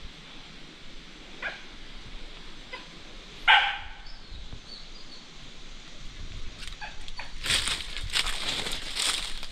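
A dog barks once, sharp and loud, about three and a half seconds in, after a fainter bark a couple of seconds earlier. From about seven seconds on, crunching and rustling, as of dry leaves and brush, grows louder.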